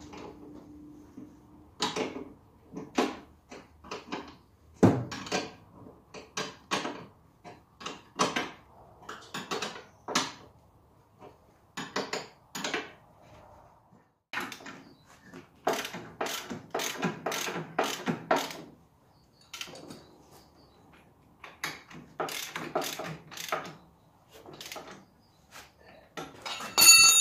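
Irregular metallic clicks, taps and clinks of a wrench working the mounting bolts of an MTZ tractor's fuel tank as they are tightened, in short runs with pauses. Near the end comes a brighter, ringing clink of metal on metal.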